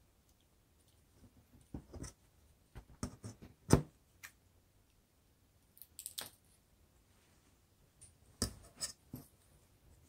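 Scissors snipping plastic drinking straws, with handling of the straws: a series of short, sharp clicks and snips in small clusters, the loudest about four seconds in.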